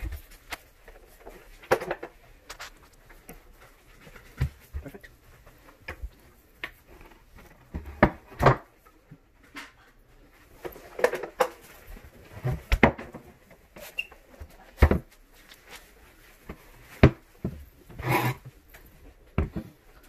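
Wooden dining chairs being handled and set down on a tile floor: irregular knocks and bumps of wooden legs and frames, spread unevenly with short quiet gaps between them.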